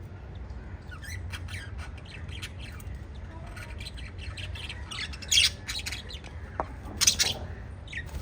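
Pet budgerigars chirping in quick short calls, with two loud harsh squawks, about five and about seven seconds in, over a low steady hum.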